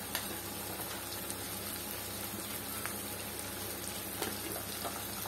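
Fish pieces, onions and chilli powder sizzling gently in oil in a kadai: a steady soft hiss with a few faint crackles.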